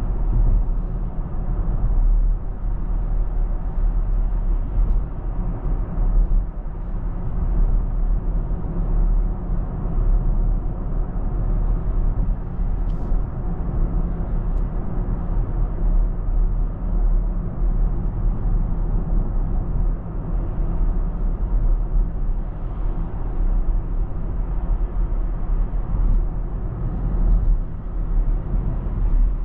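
Steady low rumble of tyre and road noise from a BMW iX3 electric SUV driving along, with no engine note under it.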